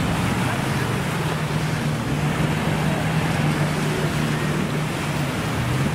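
Surf washing onto a sandy beach, with a steady low motor drone running underneath.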